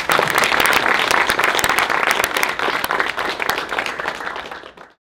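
Audience applauding, a dense patter of many hands clapping, which fades out quickly shortly before the end.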